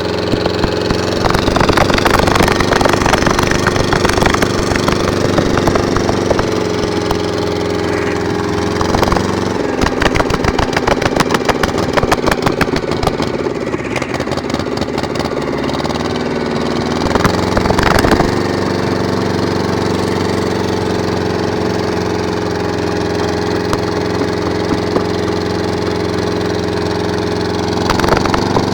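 An engine running steadily at an even speed throughout. Rapid clicking or rattling runs over it for several seconds in the middle.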